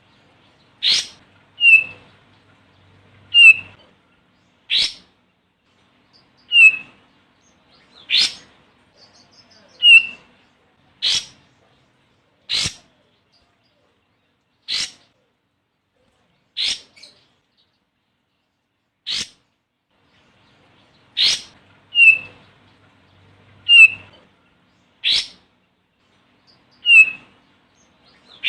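Olive-winged bulbul calling: a string of short, sharp call notes, about one every one to two seconds, some followed by a brief down-slurred chirp.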